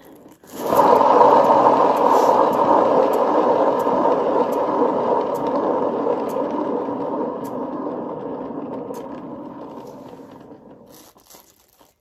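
Hand-spun paint-pouring turntable rumbling as it spins, starting about half a second in and fading gradually as it coasts to a stop.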